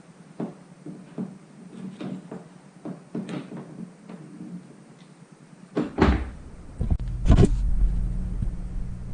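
Hard plastic case latches and lid being worked, giving a string of short clicks and knocks. About six seconds in there are two loud thumps, and then a steady low rumble sets in.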